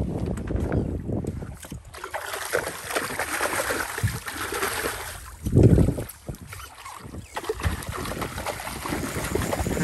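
Wind buffeting the microphone on a fishing boat at sea, with water splashing against the hull and a loud low thump a little past halfway.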